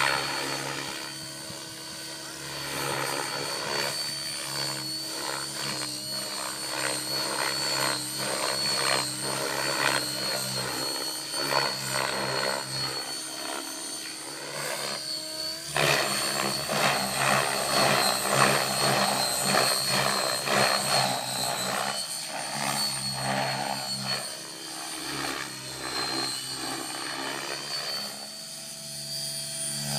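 Outrage Fusion 50 RC helicopter flying 3D aerobatics: rotor blades chopping and whooshing over a high steady motor whine, the pitch and loudness rising and falling with each manoeuvre. It is loudest for several seconds just past the middle.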